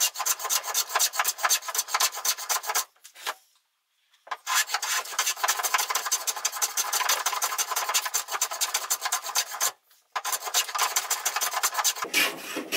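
Hand plane taking shavings off the edge of a hardwood board held in a vise: a rasping scrape of repeated strokes, stopping twice briefly.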